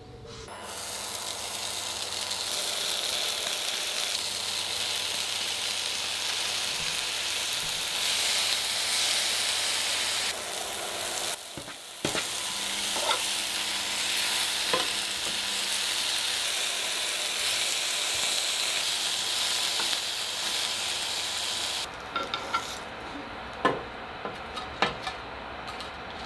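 Slices of prosciutto sizzling as they fry in a pan, a dense steady hiss with a short break about halfway. Near the end the sizzling cuts off and metal tongs clink several times against the pan and an enamel dish as the crisped slices are lifted out.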